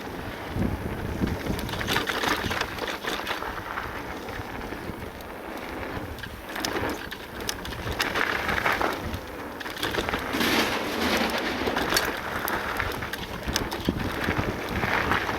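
Full-suspension e-mountain bike riding down a gravel bike-park trail: tyres crunching and rattling over the surface, with wind on the microphone. The noise swells and eases every second or two and is dotted with many short clicks.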